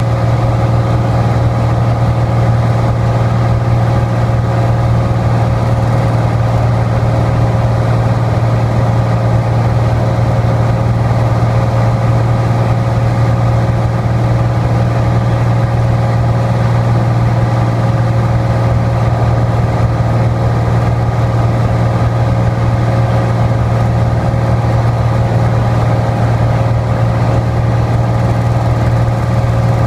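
Small aircraft's engine droning steadily, heard inside the cabin in flight: a strong low hum with a steady higher tone above it.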